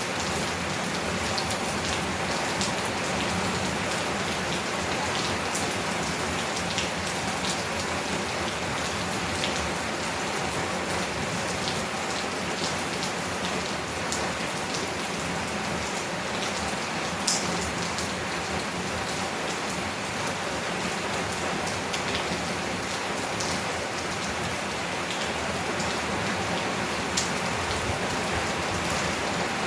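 Heavy rain falling steadily on a tin roof and leaves, with scattered sharp drop clicks, one louder about halfway through.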